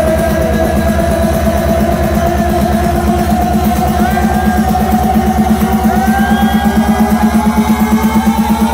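Electronic dance music played loud over a festival sound system, heard from within the crowd. A fast, even pulsing bass beat runs under a synth tone that slowly rises in pitch, an EDM build-up.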